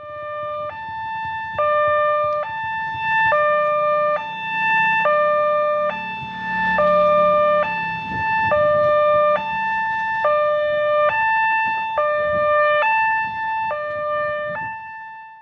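Railway level-crossing warning alarm sounding two electronic tones in turn, a higher and a lower note, each held a little under a second and repeating steadily.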